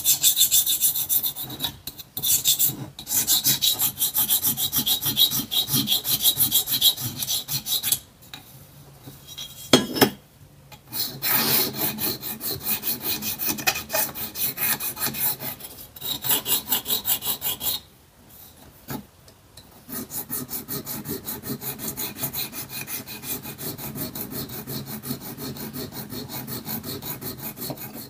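Small flat needle file scraping on a sandblasted diecast zinc-alloy toy trailer in quick back-and-forth strokes, in runs with short pauses and a single knock about a third of the way in. Toward the end the strokes turn lighter and faster, as an abrasive pad rubs a small diecast car body.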